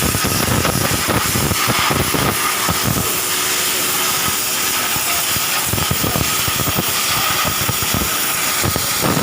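High-pressure washer spraying: a loud, steady hiss of the water jet with a steady high whine, and irregular low pulses throughout.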